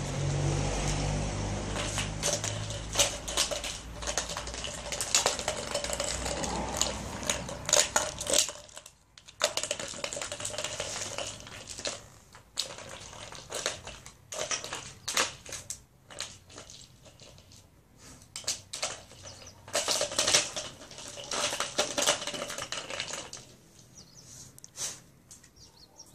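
A treat ball being nosed and rolled across concrete by a dog, clattering in irregular runs of sharp clicks that thin out near the end. A low rumble sits underneath for the first third and fades out.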